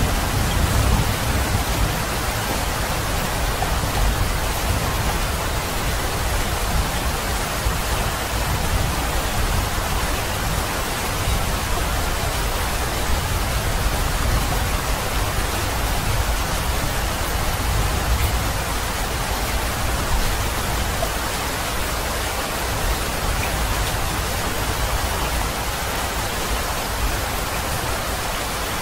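Steady heavy rain, an even hiss of falling water over a deep low rumble.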